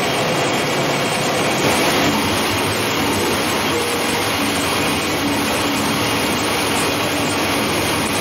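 Steady, even noise of food-processing machinery running, with a faint steady hum.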